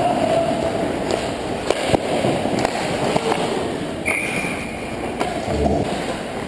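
Ice hockey play: skate blades scraping on the ice, with sharp clacks of sticks and pucks every so often.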